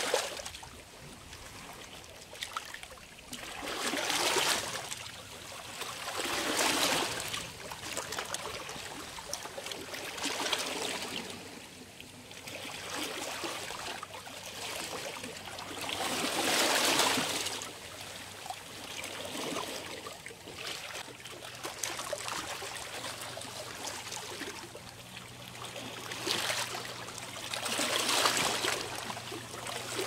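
Small sea waves washing and splashing in a series of surges a few seconds apart. A faint low steady hum joins about two-thirds of the way in.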